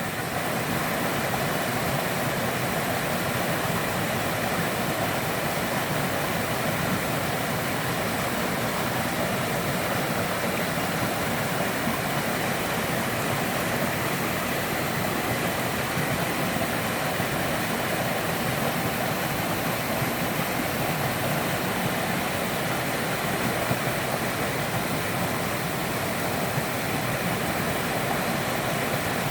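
Waterfall on a mountain stream, water pouring and splashing in a steady, unbroken rush.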